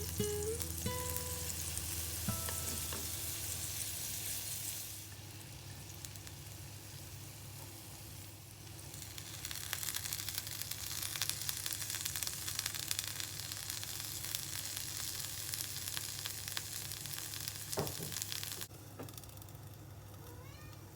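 Chicken hamburg steak patties sizzling in a cast iron skillet, a steady frying hiss. It fades about five seconds in, comes back strongly about four seconds later, and drops away near the end. A few fading musical notes sound at the start.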